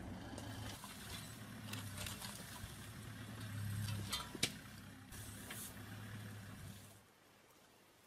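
Safari vehicle's engine idling with a steady low hum, with a few sharp clicks in the middle; the hum drops away about seven seconds in.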